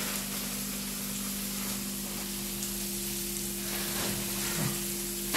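Sliced onions sizzling as they fry in a frying pan on a gas stove, an even steady hiss, with a steady low hum underneath.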